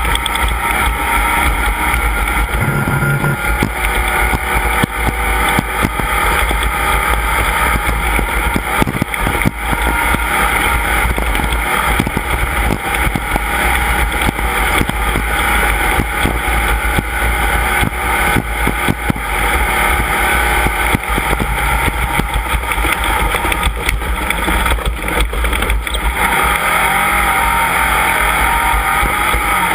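Off-road race vehicle's engine running steadily at speed, loud and unbroken, with many short knocks and rattles over a heavy low rumble.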